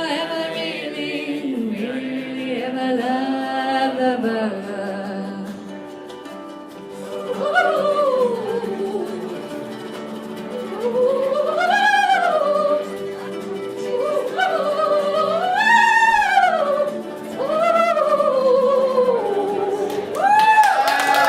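A voice singing a slow melody with long held notes and sliding pitch. From about seven seconds in, the notes swoop up and fall back in long arcs.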